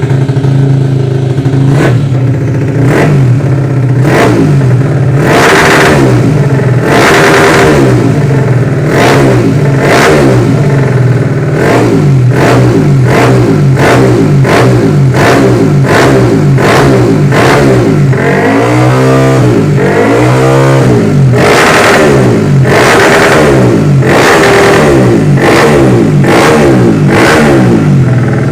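Loud Yamaha Jupiter MX single-cylinder four-stroke, race-tuned with a Vixion piston and cylinder block, PE28 carburettor and RCB Purbalingga exhaust, idling and being blipped sharply about once a second. About two-thirds of the way through, two longer revs rise and fall.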